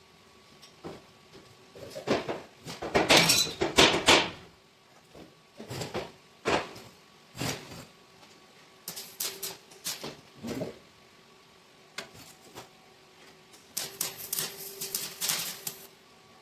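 Welder laying short tack welds on a truck frame patch, each a burst of crackling lasting one to two seconds, with scattered single metal knocks between them.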